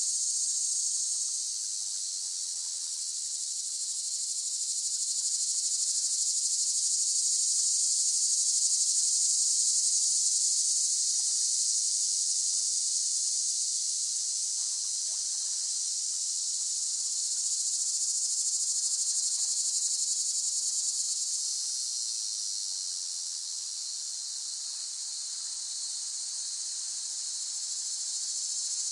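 Cicadas singing in a continuous high, shrill buzz that swells and eases slowly, growing louder toward the middle and dipping near the end.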